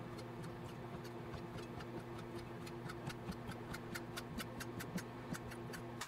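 Kitchen knife julienning a rolled egg omelette sheet on a plastic cutting board: quick, even taps of the blade on the board, about four or five a second, growing clearer after the first second or so. A low steady hum lies underneath.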